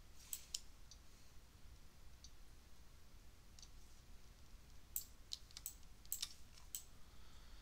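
Faint, scattered clicks of a computer mouse: a couple about half a second in and a quick cluster of five or six in the second half, over a low steady hum.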